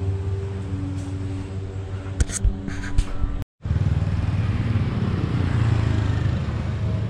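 Steady held tones with a few sharp clicks, broken off by a sudden cut a little past halfway. After the cut, street noise: an even rumble of road traffic with motorbikes.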